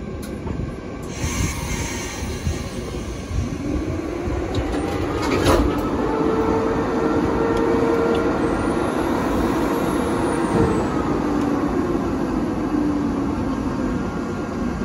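EP2K DC electric locomotive standing coupled to its train, its auxiliary machinery running with a steady hum. A humming tone comes in about four seconds in and fades near the end, and there is a sharp clank about five and a half seconds in.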